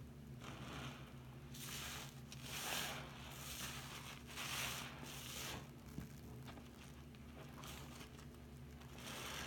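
Soap-soaked sponge squeezed and wrung by hand in a sink of foamy water: repeated wet squelching with crackling suds, about one squeeze a second.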